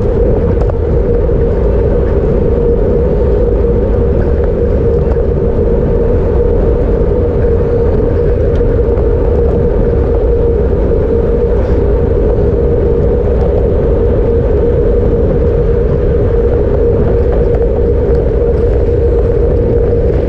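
Steady wind and road noise picked up by a camera on a road bike's handlebars at racing speed: a constant loud rumble with an unbroken mid-pitched hum from the tyres and frame.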